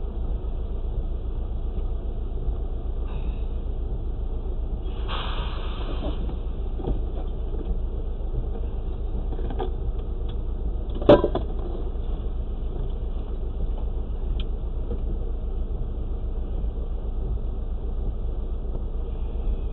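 Semi truck's diesel engine idling steadily, heard from inside the stopped truck's cab. There is a brief hiss about five seconds in and a single sharp knock about eleven seconds in.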